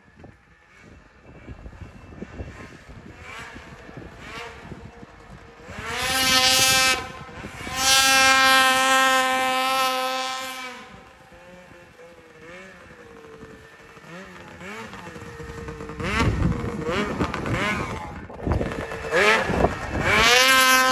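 Race snowmobile's two-stroke engine revving under hard throttle. Faint at first, it gets loud in two long bursts, about six to eleven seconds in and again near the end, with the pitch rising and falling as the throttle is worked.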